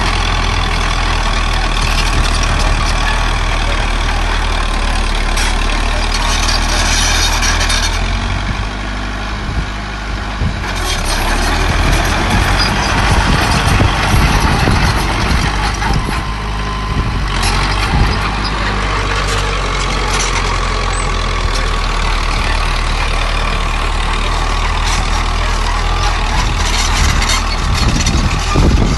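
Heavy diesel machinery running continuously: the engines of a small bulldozer and dump trucks, a steady low drone with grinding, clattering noise over it that eases and swells a few times.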